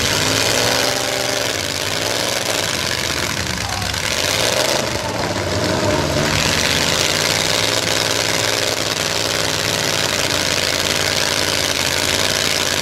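Demolition-derby trucks' engines running and revving, their pitch rising and falling, over a steady noisy din.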